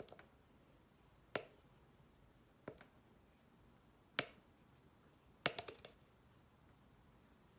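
Sharp, short plastic clicks as the wall of a thin plastic tub is pressed and flexed while a soldering iron tip melts through it: single clicks about every second and a half, then a quick cluster of several near the end as the tub is turned.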